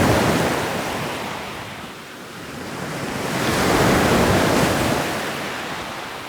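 Ocean waves rolling onto a shore: two waves swell and wash in, the first at the very start and the second about four seconds in, each fading away as it recedes.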